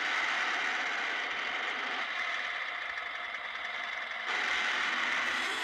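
A Volkswagen Beetle convertible's engine running as the car drives, heard thin and muffled through a TV speaker with almost no low end. The sound is steady and steps louder near the end.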